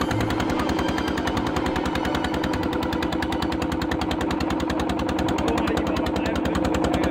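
A motorboat's engine running steadily, a fast, even chugging of rapid knocks.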